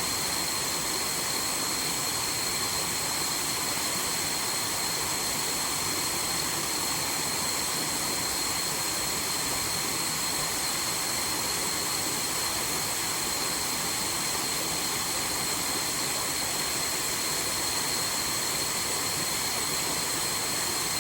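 Waterfall rushing steadily, with a steady high-pitched whine laid over the rush of water.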